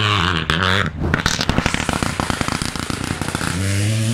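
Rally car on a gravel stage: engine revving hard, then about a second in a rapid, dense crackling for a couple of seconds, and the engine revs up again near the end.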